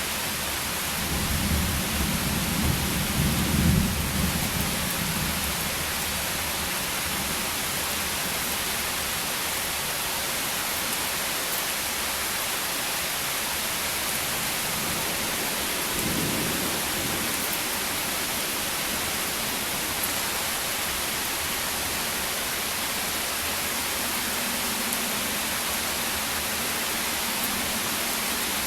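Steady rain hiss in a thunderstorm, with a roll of thunder rumbling low for a few seconds starting about a second in, and a shorter, fainter rumble of thunder about halfway through.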